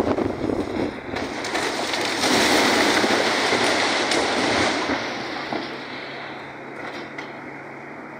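Brick and timber debris crashing down as a Komatsu excavator pulls part of a building down. The crash swells about two seconds in and dies away after about five seconds, and the excavator's diesel engine runs steadily underneath.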